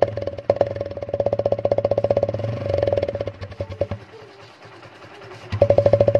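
Single-cylinder motorcycle engine of a TVS Apache RTR running with quick, even exhaust pulses and a ringing tone. A 7UP can rigged at the silencer outlet is meant to make it sound like a KTM Duke. The sound falls away about four seconds in, then comes back in a short loud burst of throttle near the end.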